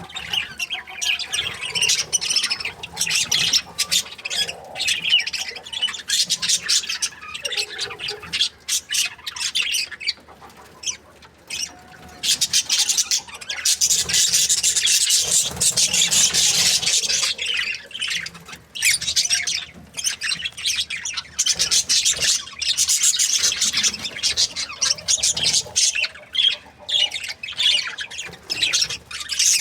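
Budgerigars chirping and chattering in quick, busy calls, easing off briefly about ten seconds in before picking up again.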